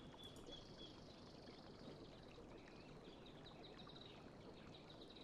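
Near silence: faint room tone and hiss, with a faint steady high-pitched whine.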